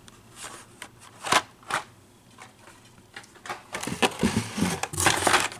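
Hot Wheels carded blister packs being handled: a couple of light plastic clicks or knocks, then a spell of plastic and card rustling and crinkling in the second half.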